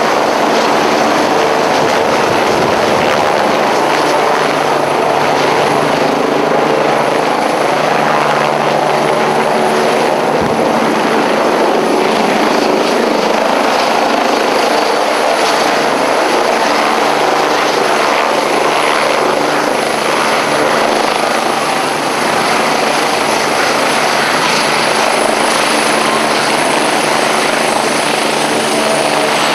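Twin-turbine Eurocopter EC145 rescue helicopter, its rotors and turbines running loud and steady as it flies low overhead, hovers and sets down on the ground with the rotor still turning.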